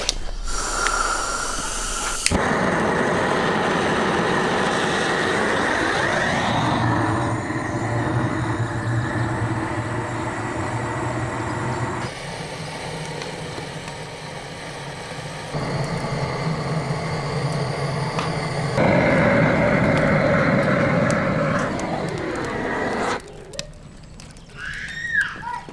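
Propane gas torch roaring as it fires a tandoor, the steady roar cutting in and out at edits.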